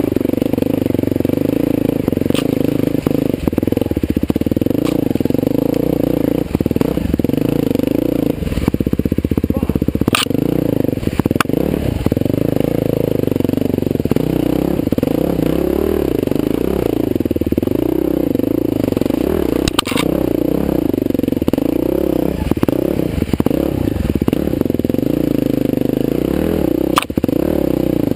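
Husqvarna TE511 dirt bike's single-cylinder four-stroke engine running under constantly changing throttle, its note rising and falling. A few sharp knocks and clatter cut through it.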